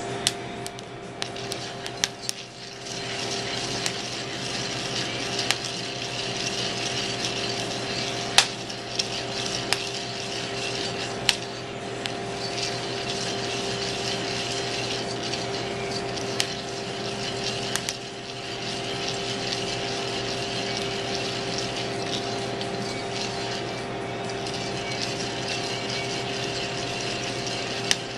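Coffee beans being stirred with a wooden spoon in a cast iron pan over a steady hissing propane burner with a constant hum. Scattered sharp pops come at irregular intervals: the beans beginning first crack.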